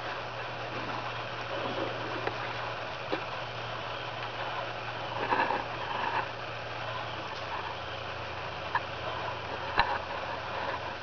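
A young whitetail buck feeding in dry leaf litter: soft rustling and a few sharp cracks as it noses through the leaves. Under it runs a steady low hum that drops slightly in pitch partway through.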